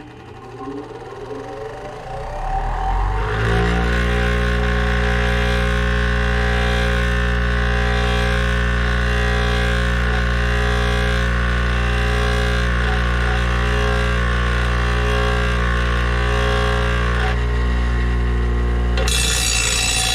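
Bench grinder switched on, its motor hum rising in pitch over about three seconds as it spins up, then running steadily. Near the end a dull steel mower blade is pressed against the wheel to sharpen it, and a harsh grinding hiss joins the hum.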